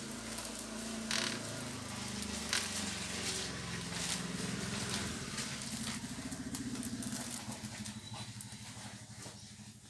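An engine hums nearby, rising in pitch and then fading near the end, under the rustle of a paper invoice and a plastic mailer bag being handled.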